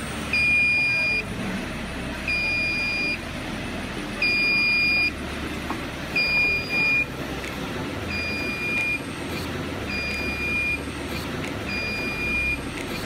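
Alarm buzzer on an automatic hose-cutting machine's control panel beeping: a steady high-pitched tone just under a second long, repeating about every two seconds, over a low machine hum.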